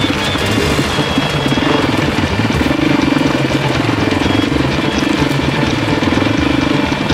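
Dirt bike engine running steadily under way, its firing pulses getting stronger about two seconds in.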